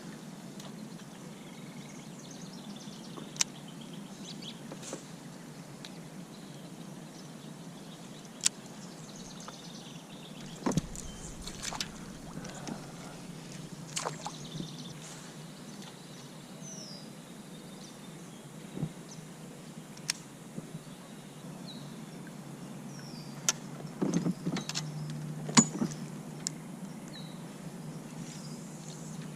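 Scattered sharp clicks and knocks of fishing tackle and gear against a kayak, every few seconds and bunched together near the end, over a steady low rush.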